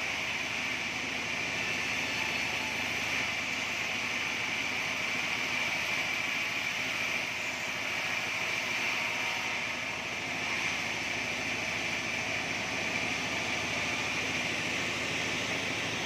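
Sawmill band saw running steadily: an even machine noise with a constant high tone.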